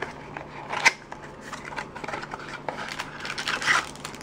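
Trading-card packaging being opened by hand: a sharp snap about a second in, then bursts of crinkling and rustling as the wrapped pack is pulled out and handled.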